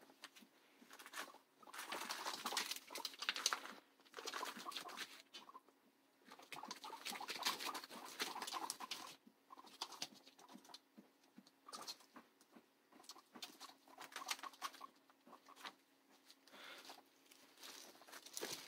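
Light rustling and pattering on newspaper cage lining and hay, in bouts of a second or two with short pauses, as guinea pigs move about the cage.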